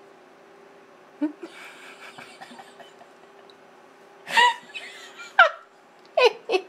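A kitten scuffles with a toy ball on a stone floor, a rustling patter with small clicks, and then people laugh in short bursts as the kitten flops over with the ball, beginning a little past the middle.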